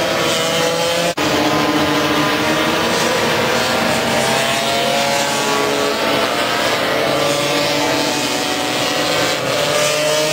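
Several racing scooters' small two-stroke engines running at high revs on the track, their pitches sliding up and down independently as the riders change gear and take corners. There is a brief break in the sound about a second in.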